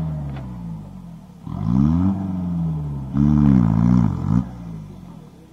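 Off-road jeep's engine revving in two bursts: each time the pitch rises and then falls, the second burst longer with a brief dip in the middle.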